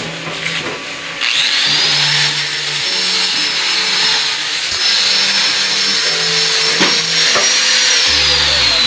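An electric power tool spins up about a second in, runs steadily with a high whine, and starts to wind down near the end. Background music plays underneath.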